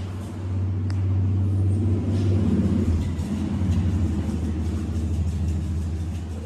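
Low engine rumble that swells over the first couple of seconds and eases off toward the end.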